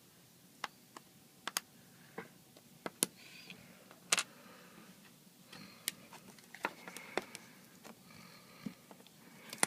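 Irregular light clicks and taps of small hand tools and parts on an opened iPad, with faint brief scraping between them.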